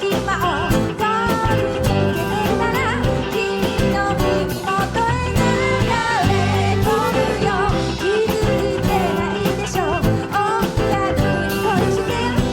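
Live band music with drums, bass and guitar under a wavering lead melody line.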